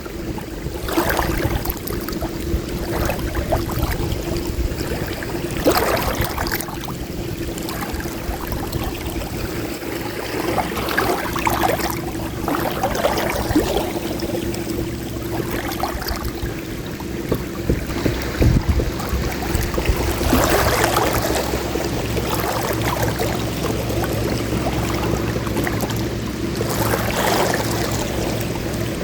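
Small wind-driven waves lapping and splashing at the water's edge in irregular surges, over a steady low hum.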